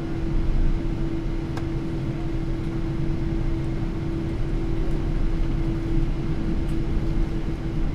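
Cabin noise of a Boeing 777-300 airliner taxiing after landing: a steady low rumble with a constant droning tone. A faint click comes about one and a half seconds in.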